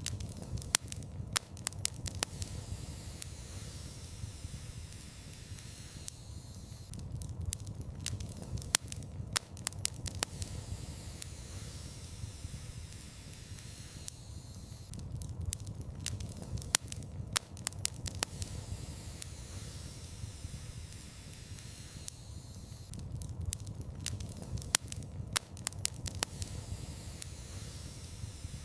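Fire burning in a fireplace: a steady low rumble and hiss of flames with sharp crackles and pops that come in clusters about every eight seconds.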